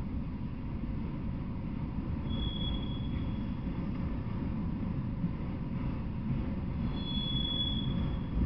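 Freight train of autorack cars rolling past: a steady low rumble of steel wheels on rail, with a brief high-pitched wheel squeal about two seconds in and another near the end.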